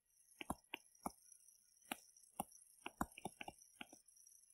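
Pen stylus tapping and scratching on a tablet screen during handwriting: a dozen or so faint, irregular ticks.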